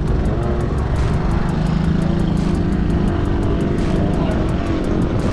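Racing speedboat engines running loud and steady. A droning engine note holds one pitch for about a second and a half near the middle.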